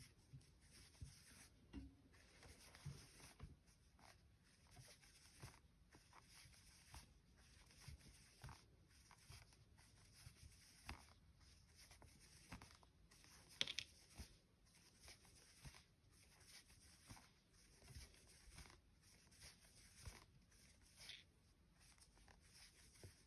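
Faint rustling and soft ticks of a metal crochet hook pulling plush chenille yarn through stitches, about once or twice a second.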